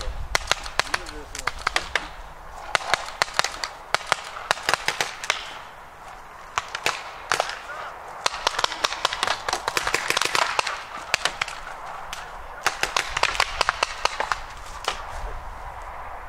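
Paintball markers firing: rapid strings of sharp pops in repeated bursts, with short pauses between them.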